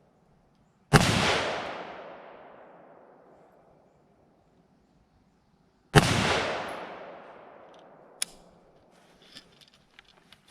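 Two rifle shots about five seconds apart, each a sharp crack followed by a long echo that dies away over about three seconds. A short sharp click follows a couple of seconds after the second shot.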